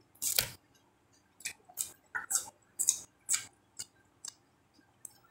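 Close-miked chewing of fresh watercress eaten by hand: a string of short, crisp, wet mouth clicks and crunches, roughly two a second. The first, just after the start, is the loudest.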